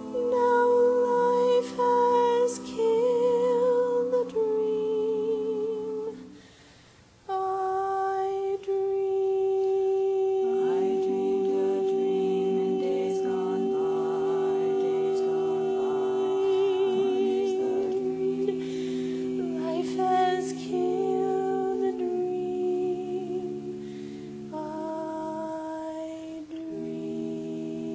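Women's barbershop quartet singing a cappella in four-part close harmony: sustained chords with vibrato, dipping briefly about six seconds in before a long held chord.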